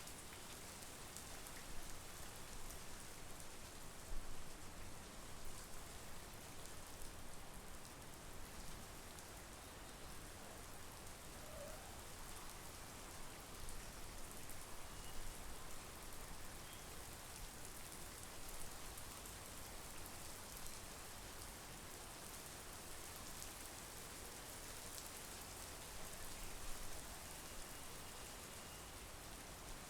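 Steady monsoon rain, an even hiss with scattered louder drops.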